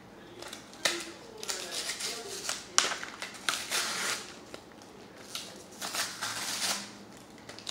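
Foil booster-pack wrapper of Pokémon trading cards being torn open and crinkled by hand, with paper inserts pulled out: a run of short, irregular crackling rustles with a few sharp snaps.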